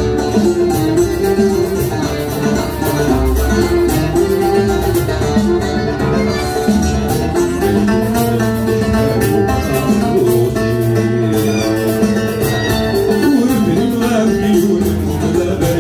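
A mandole, a large round-bodied fretted lute with steel strings, playing a plucked instrumental melody of quick picked notes over a steady accompaniment.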